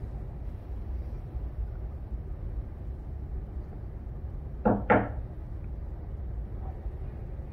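Two quick knocks on a door, a little past the middle, over a steady low room hum.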